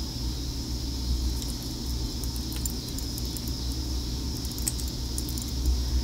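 Steady low rumble and a thin high hiss of background noise, with faint, scattered light clicks of small items being handled.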